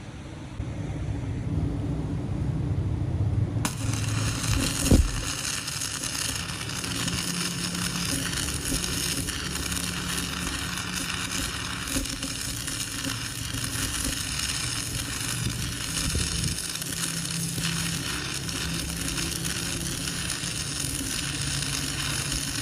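Arc welding on a cracked truck front axle: a steady crackling sizzle that starts suddenly a few seconds in, over a low steady hum.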